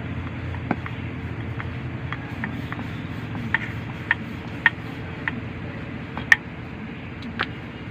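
Wooden rolling pin knocking and clicking against the rolling board as roti dough is rolled out, a dozen or so irregular sharp clicks, one louder about six seconds in, over a steady low background hum.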